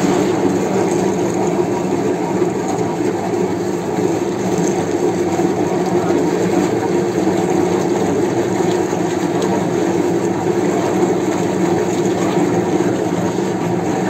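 Old meat mincer running steadily, a constant mechanical hum with a grainy grinding noise over it as meat is forced through the plate.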